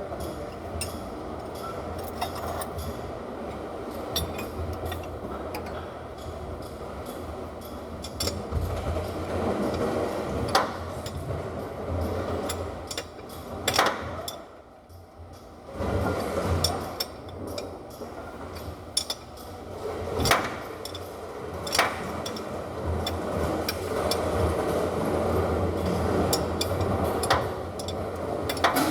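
Metal hand tools clinking and knocking on engine parts, with several sharp strikes spread through, over a steady low rumble that drops away briefly about halfway.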